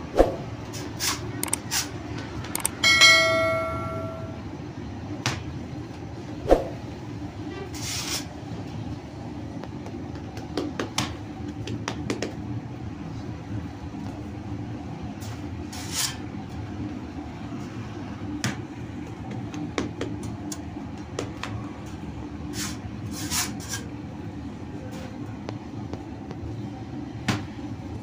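Steady hum of bakery machinery, a rotating flatbread oven and dough sheeter, with repeated sharp slaps and knocks as dough is handled and slapped onto the baking pad and oven. About three seconds in, a short ringing tone lasts just over a second.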